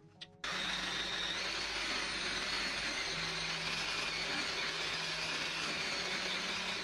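Electric stick blender with a whisk attachment running steadily, whisking melted chocolate and butter into beaten eggs and sugar for brownie batter. The motor starts about half a second in and stops right at the end.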